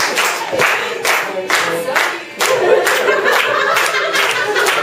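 A group of voices singing together, with hands clapping along in a steady beat of about two claps a second.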